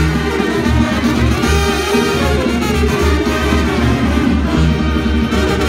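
A live banda sinaloense brass section, trumpets and trombones, plays an instrumental passage over a steady, pulsing bass beat.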